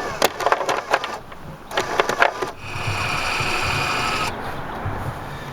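A small electric motor, as in a radio-controlled model boat, whines steadily at a high pitch for under two seconds past the middle, cutting in and out abruptly, after some short knocks and clatter.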